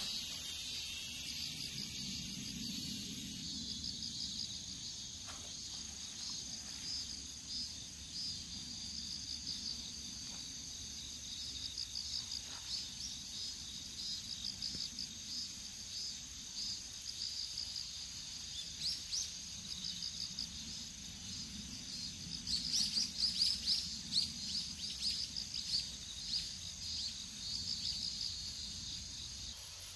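Crickets and other autumn insects chirping in rapid, repeated high pulses, louder in a stretch about two-thirds of the way through. A loud high hiss sits over the first three seconds or so.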